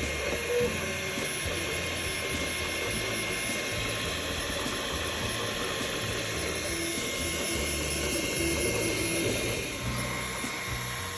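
Toybox 3D printer printing: its motors whir in short runs that keep changing pitch as the print head moves, over a steady high hum.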